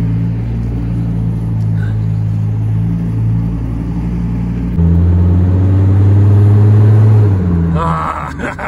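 Chevy Colorado pickup's engine running, heard from inside the cab while driving. About five seconds in the engine note abruptly drops lower and grows louder, then fades near the end.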